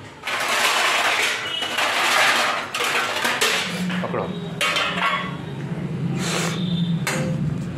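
Stainless steel kitchen utensils, plates and bowls clattering and clinking as they are handled in a dish rack and on the counter.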